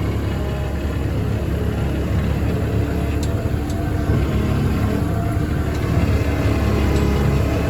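Perkins three-cylinder turbo diesel engine of a compact tracked skid steer running steadily.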